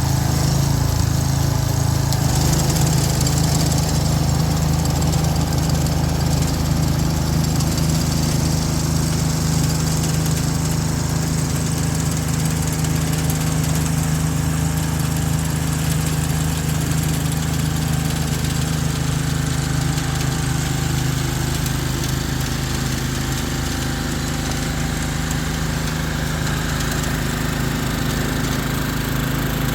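Ryan GreensAire walk-behind core aerator's small engine running steadily, its pitch stepping up slightly about two seconds in.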